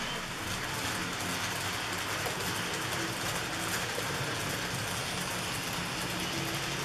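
N-scale model train, a Fleischmann class 151 electric locomotive hauling Arnold bogie tank wagons, running along the track: a steady rolling rattle of the small wheels on the rails with a faint motor hum.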